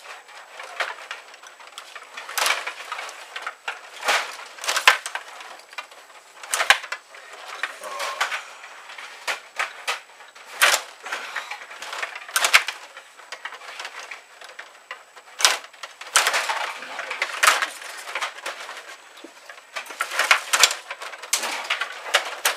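Rod hockey table game in play: the control rods rattle and spin, and the plastic player figures and puck clack against each other and the boards in irregular bursts, with a few much louder sharp hits.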